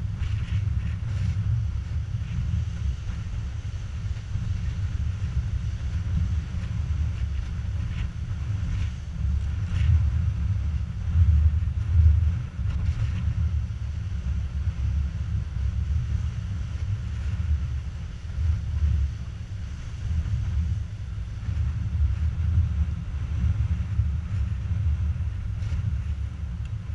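Wind buffeting the microphone in a loud, gusting low rumble, with the wash of surf breaking on the rocks fainter beneath it.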